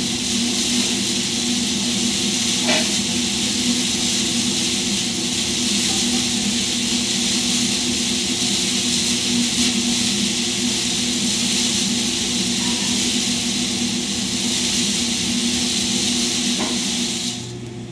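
Agriculex CB-3 column seed cleaner's blower running, a steady rush of air with a low hum underneath, as it blows up through a column of soybeans to lift out chaff and light material. Near the end the air rush drops away abruptly, leaving a lower hum.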